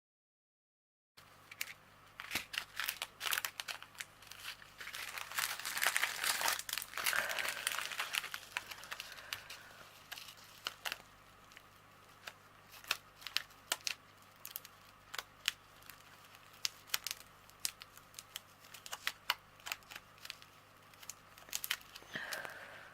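Small plastic packets of diamond-painting resin drills being handled and shuffled, crinkling, with many small sharp clicks and rattles. Starts after about a second of dead silence.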